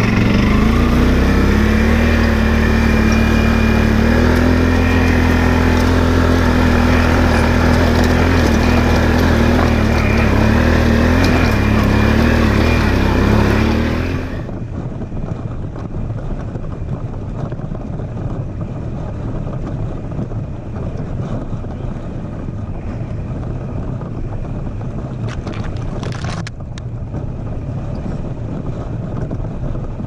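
Can-Am Outlander XMR 850 ATV engine running under load up a steep trail hill, its note rising slightly and then holding steady. About fourteen seconds in the sound abruptly turns quieter and duller, the engine still going under an even rushing noise.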